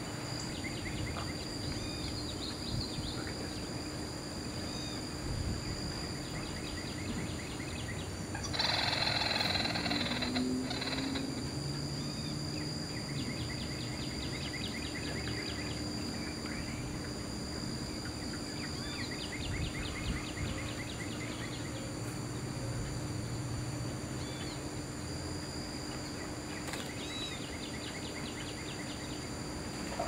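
Natural ambience: insects droning steadily at a high pitch, with birds giving short rapid trills on and off. About a third of the way in there is a brief rushing noise, the loudest sound.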